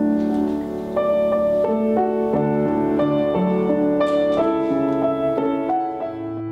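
Yamaha upright piano played by hand: sustained notes and chords, a new one struck roughly every second, melody over held bass notes.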